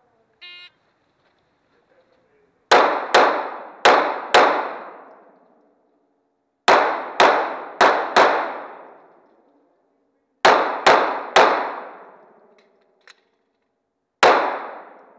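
A faint shot-timer start beep, then thirteen 9mm pistol shots from a Glock 17. They come as three quick strings of four, a few seconds apart, then a single shot near the end. Each shot rings out with a long echo in an indoor range.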